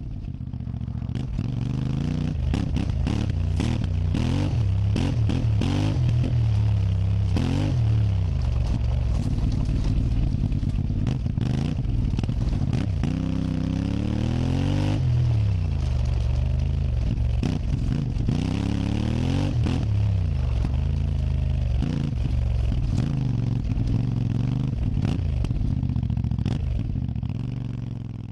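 Alpina 300 motorcycle engine running under way, its pitch rising as it revs up and falling off again several times, as through gear changes.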